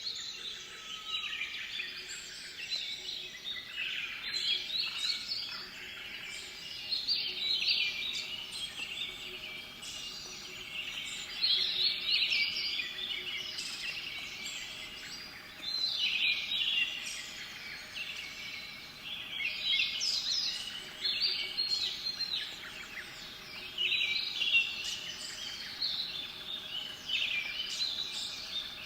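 Several small songbirds singing in woodland, one chirping phrase overlapping the next without a break.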